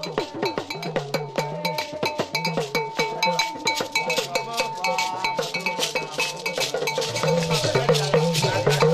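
Hand percussion at a fast, steady rhythm: a ringing struck bell, a gourd rattle and handclaps, over group singing.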